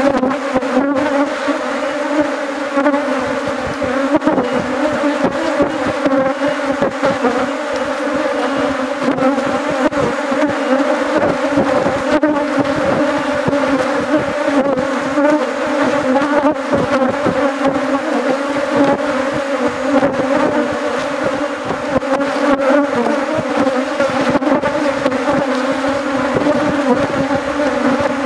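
Steady, loud hum of a mass of honeybees flying around an opened hive.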